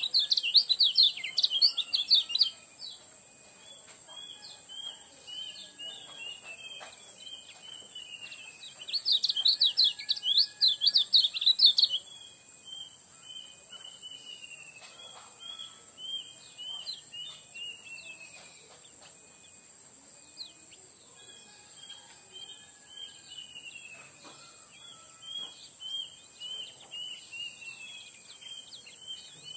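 Caged kecial kuning (yellow white-eye) singing: two loud bursts of fast, high warbling, one at the start and one about nine seconds in, with runs of softer falling chirps between and after. A steady high whine sits in the background.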